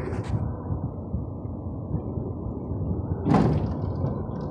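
A truck-mounted crane's diesel engine running steadily, with a brief knock near the start and a louder knock about three seconds in.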